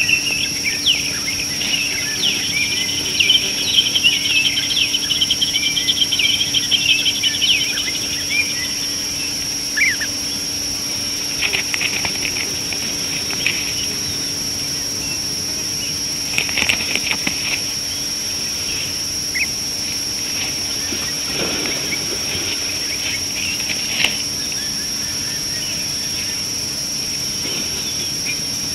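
Birds chirping outdoors, a busy run of short calls for the first several seconds, then only a few scattered calls. Under them runs a steady high-pitched drone.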